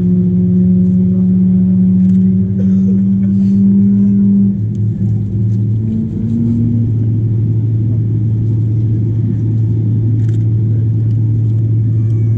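Steady low drone in the cabin of a Boeing 777-300ER on the ground, with a higher hum that cuts out about four and a half seconds in, leaving a lower steady hum.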